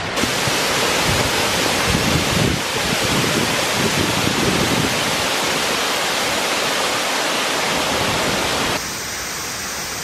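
Waterfall in heavy flow, pouring into a pool with a steady rushing sound that drops to a lower level near the end.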